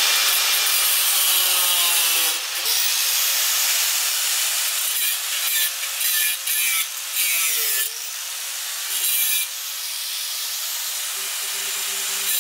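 Corded angle grinder running and grinding off nails that stick out of the wall, its pitch sagging and recovering a few times as the disc bites, with a few short breaks in contact.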